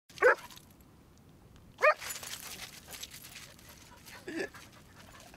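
A dog giving three short barks, roughly two seconds apart, the second one the loudest.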